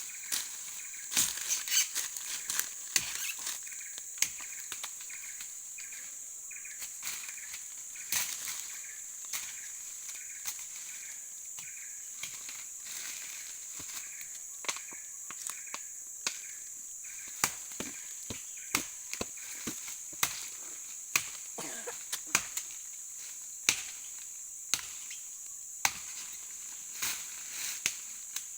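Chopping into a woody bajakah vine: irregular sharp blows, sometimes two or three close together, over a steady high hiss.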